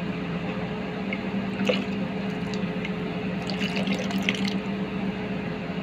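Cornstarch slurry poured in a thin stream into boiling chicken-and-bacon pan juices in a stainless steel pot, splashing for a second or so in the second half, to thicken the sauce. A steady low hum runs underneath.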